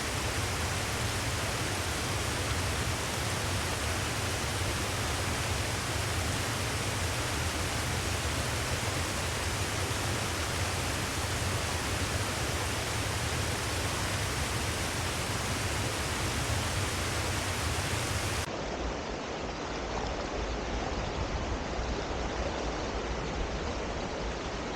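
Steady rush of a mountain river's flowing water. About three quarters of the way through it turns slightly quieter and duller.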